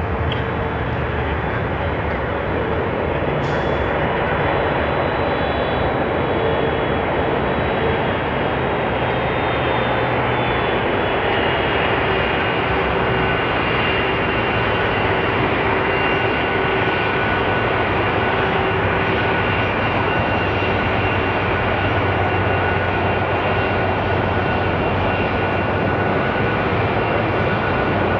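A British Airways Boeing 747-400 taxiing, its four Rolls-Royce RB211 turbofan engines at low taxi power: a steady jet rush with several high whining tones.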